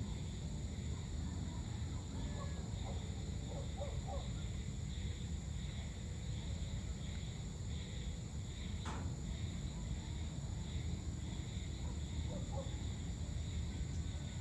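Evening outdoor ambience: crickets or other insects chirring steadily in a high drone over a low, constant rumble, with one sharp click about nine seconds in.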